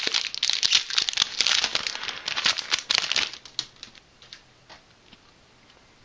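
Foil Yu-Gi-Oh! booster pack wrapper crinkling loudly as it is opened, for about three and a half seconds, followed by a few faint clicks as the cards are slid out.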